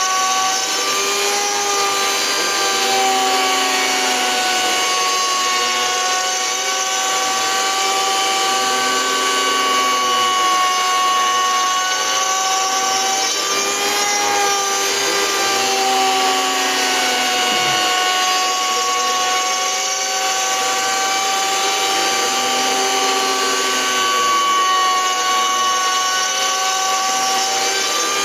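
Homemade CNC router with a cheap mini grinder as its spindle, running steadily with a high whine while it mills a circular pocket in wood. A lower tone rises and falls in a slow cycle that repeats every four to five seconds.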